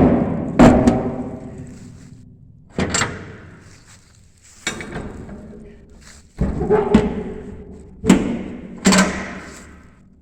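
Steel shipping-container door being swung and banged shut in repeated attempts: about eight heavy metallic bangs and clanks, each ringing on in the hollow steel box.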